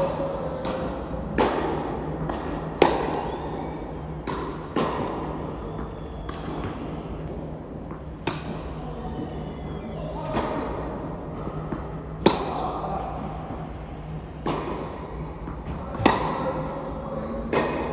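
Tennis rally: racket strikes on the ball, loudest from the near player, alternating with fainter far-end hits and bounces every second or two, each echoing in the large indoor hall. A steady low hum runs underneath.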